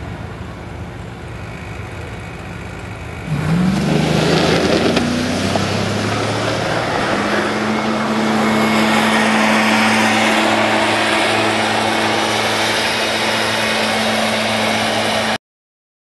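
Battery-electric Mazda Miata drag car launching: the noise jumps up suddenly about three seconds in with a rising whine, then a loud, steady rushing noise with a constant hum runs on until the sound cuts off abruptly.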